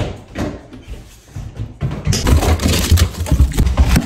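Hurried footsteps, then about two seconds in a freezer pulled open and frozen packages rummaged with loud clattering and crinkling.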